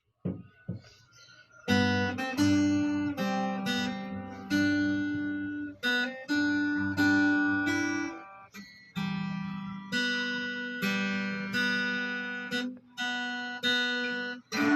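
Acoustic guitar strumming chords, each struck and left to ring out, moving through a slow chord progression as the instrumental intro.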